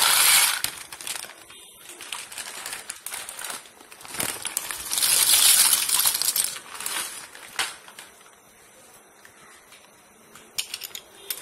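Dry penne pasta poured from a plastic packet into a steel pot of boiling water, two packets one after the other: a loud rattling, hissing rush at the start and again about five seconds in, with quieter rattling and a few sharp clicks between and near the end.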